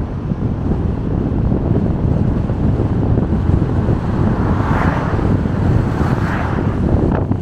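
Wind and road noise from a car driving along a road: a steady low rumble of wind buffeting the microphone, with a rushing swell about five seconds in and a second one just after six seconds.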